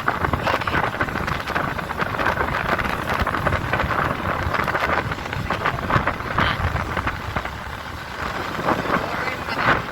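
Wind buffeting on the microphone of a moving motorcycle, a steady rush with irregular gusts, over road and engine noise.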